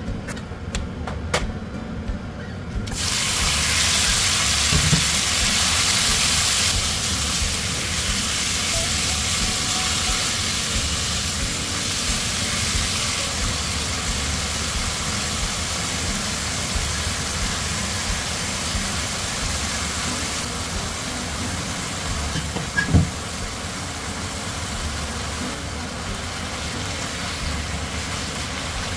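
Pork frying in an oiled pan, a loud steady sizzle that starts abruptly about three seconds in, with a low steady rumble underneath and a single light knock near the end.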